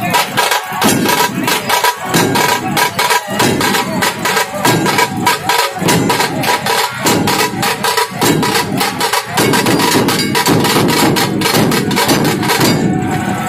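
Music of fast, dense drumming with a held tone over it. The beating stops about a second before the end.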